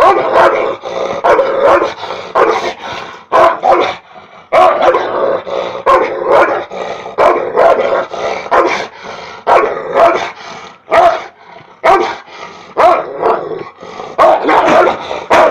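Caucasian Shepherd Dog barking aggressively at the person filming, teeth bared, about two loud barks a second with a short pause about four seconds in.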